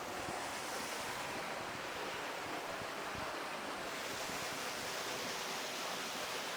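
Waterfall pouring: a steady rush of falling water.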